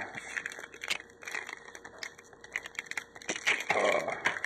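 Wrapper of a 36-card Topps baseball card pack being torn and worked open by hand, with irregular crinkling and rustling and a louder rustle near the end.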